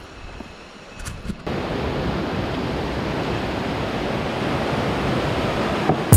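Rushing water of a shallow stream running over rocks, a steady even rush that starts abruptly about one and a half seconds in. Before it there is a quieter stretch with a few light clicks.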